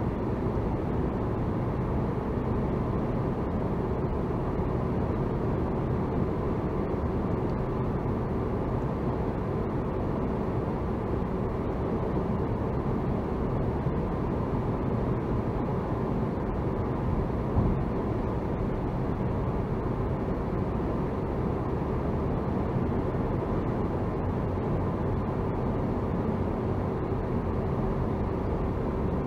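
Steady road noise heard from inside a moving car's cabin: tyre and engine noise with a faint steady hum.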